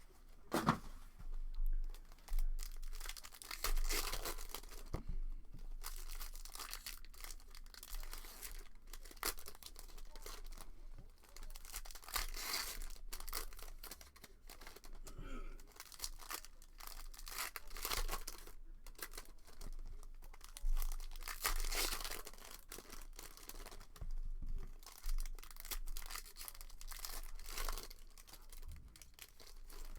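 Trading card pack wrappers being torn open and crinkled, with irregular tearing and rustling throughout.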